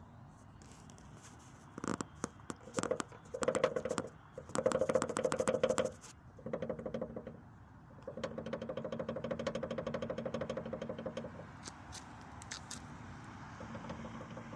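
Rapid rattling knocks in bursts from the front left of a Suzuki SX4 driving over small bumps, loudest about two to six seconds in and again from eight to eleven seconds. The knocking is the bonnet rattling because its rubber bump stop beside the left wing sat too low.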